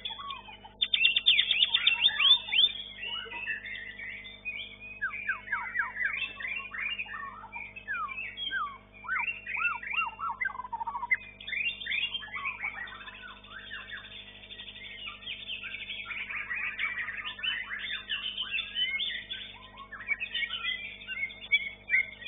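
White-rumped shama (murai batu) singing in a competition cage: fast runs of whistled notes, quick downward sweeps and trills, loudest a second or two in, with a short lull midway. A faint steady hum lies underneath.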